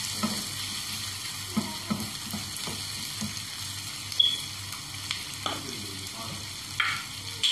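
Chicken pieces, capsicum, carrot and onion sizzling in a nonstick frying pan as they are stir-fried with a wooden spatula: a steady sizzle with scattered light knocks of the spatula against the pan, the sharpest about four seconds in.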